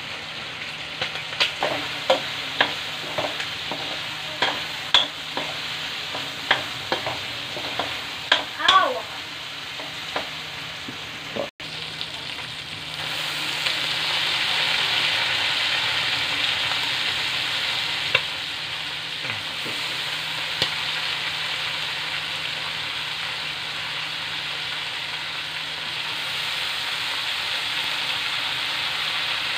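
Pork pieces sizzling in a hot wok, with a run of sharp clinks and scrapes from stirring against the metal during the first ten seconds. After a brief break the sizzle turns louder and steady, with cabbage, carrots and green beans frying in the pan.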